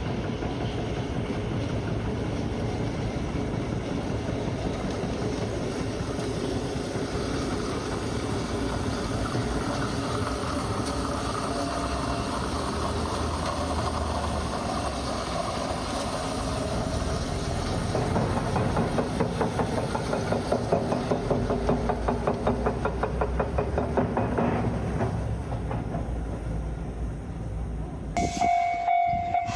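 A train running past close by with a steady rumble, then a fast, even clatter of its wheels over the rail joints for several seconds in the second half. Near the end, after a break, a steady pitched tone begins.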